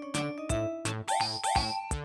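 Bouncy children's background music with a steady drum beat, about four hits a second, under a held melody with sliding tones.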